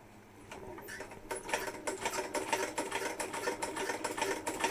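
Sewing machine stitching through leather, starting up about a second in and settling into a fast, even run of about five to six stitches a second.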